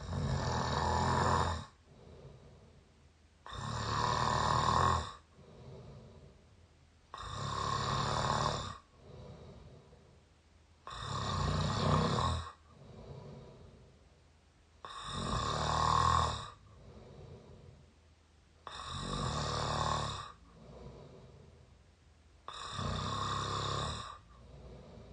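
Person snoring through the open mouth, close up. There are seven loud snores, one about every four seconds, each followed by a much quieter breath, in a slow, even rhythm.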